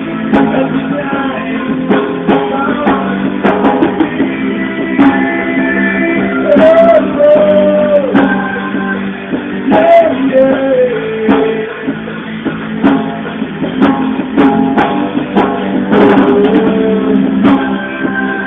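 Live band music: plucked guitar chords over a drum beat, with a lead melody line that slides in pitch a few times. The recording is dull and muffled, with no treble.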